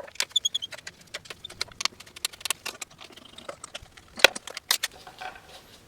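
Irregular sharp metallic clicks and clinks of bolts and hand tools being handled while the bolts of a cover on an electric dirt bike are taken out, with a short ringing ping near the start.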